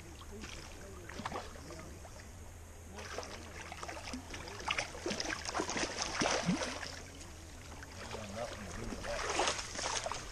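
A hooked salmon thrashing and splashing in shallow river water as it is brought to hand, in irregular bursts that are strongest in the middle and again near the end.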